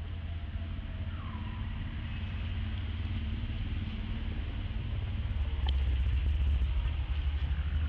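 A steady low rumble under outdoor background noise, growing louder about five and a half seconds in. A short falling squeak sounds about a second in, and a few faint clicks come near the end.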